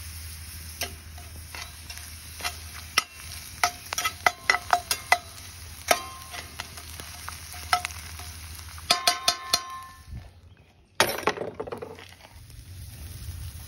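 A spatula clicks and scrapes against a cast-iron skillet as french fries are turned in hot oil, with the frying sizzle underneath. The taps ring briefly and come in quick runs. A brief loud noise comes near the end.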